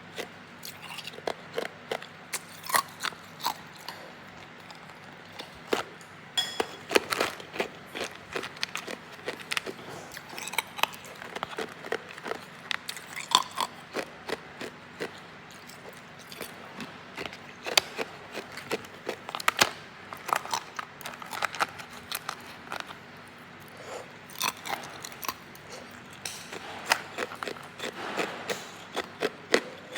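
Hard ice being bitten and chewed close to the microphone: a long run of irregular sharp crunches and cracks.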